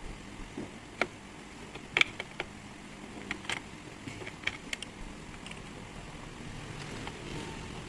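Irregular sharp clicks and taps of small parts being handled during the repair of a laser level, about a dozen of them in the first five seconds, over a low steady hiss.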